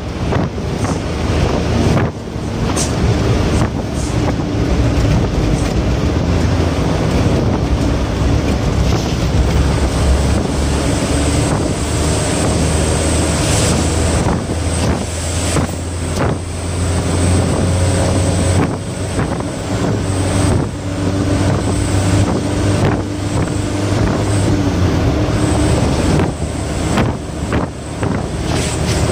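A truck's engine running hard at speed, heard from inside the cab, over steady road and wind noise, with occasional short thumps.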